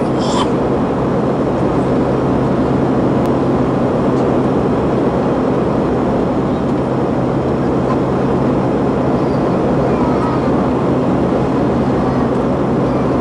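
Steady drone of an airliner cabin: engine and air noise at an even level, with a constant low hum underneath.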